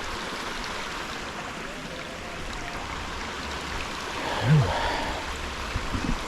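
Steady rush of water from a waterfall and its creek. A brief low voice sound comes about four and a half seconds in.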